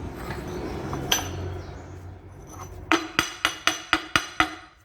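Hammer blows on metal: one knock about a second in, then a quick run of about seven ringing strikes near the end, driving the worn control-arm bushing out.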